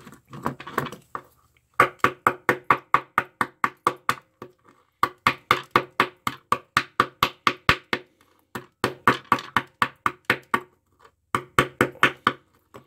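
A knife chopping rapidly into the paper-and-foil winding of an old oil-and-paper capacitor, the blade knocking on the wooden bench beneath: quick, even knocks about four or five a second, in several runs with short breaks.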